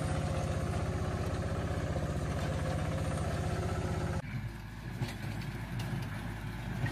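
Mini tractor engine running steadily under load while pulling a two-bottom plough, with a fast, even pulse in its note. About four seconds in it cuts abruptly to a quieter, less even sound of a compact tractor working a small square hay baler.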